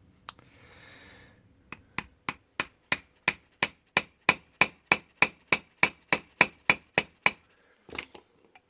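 Hammer tapping a steel pin punch against a brass Ilco padlock, about three light metallic taps a second, around twenty in a row, driving out one of the centre pins in the lock's face. A few more taps follow near the end.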